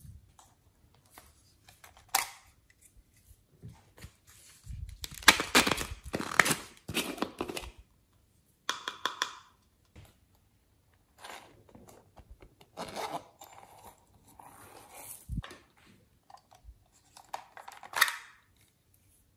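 Plastic toy containers being handled and opened by hand: intermittent crackling, tearing-like rustles and plastic clicks, busiest about five to seven seconds in, with a sharp click near the end.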